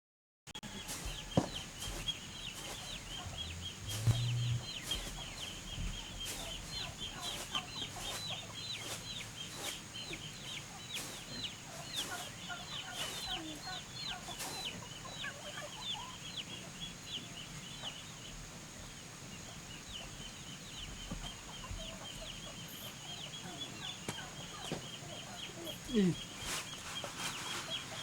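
Chickens peeping and clucking: a dense, continuous stream of short, high, falling chirps, several a second, with a brief pause about two-thirds of the way through.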